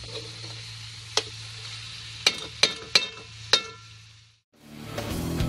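Metal spatula stirring food in an aluminium wok over a gas burner: a faint sizzle over a low steady hum, broken by about five sharp ringing clinks of the spatula on the pan. The sound cuts off about four and a half seconds in, and guitar-led rock music starts.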